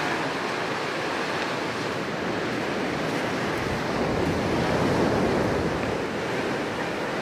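Ocean surf washing onto a sandy beach, a steady rush of breaking waves that swells a little about four to five seconds in, with some wind on the microphone.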